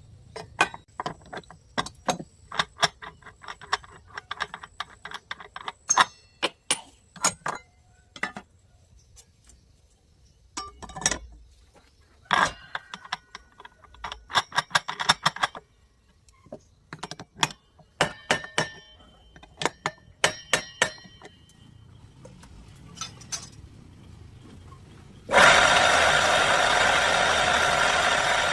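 Metal clicks and clinks of a large circular saw blade and tools being handled as the blade is changed. About 25 seconds in, the saw's motor starts and runs loud and steady.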